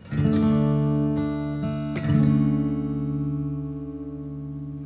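Background music of a strummed acoustic guitar: one chord at the start and another about two seconds in, each left to ring and fade.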